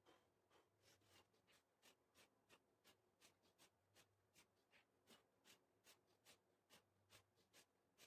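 Faint, quick, regular swishes, about two or three a second, from a person doing Hindu squats, played back four times faster than real time.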